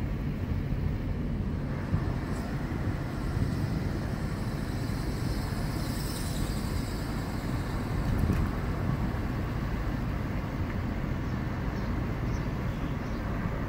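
Steady road and engine noise heard from inside a moving car, a continuous low rumble with no breaks.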